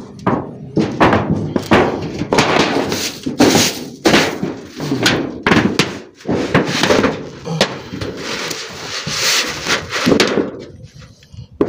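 A dense string of thunks, knocks and scrapes from clay roof tiles and a zinc roofing sheet being handled and stepped on. The strokes come every fraction of a second and ease off near the end.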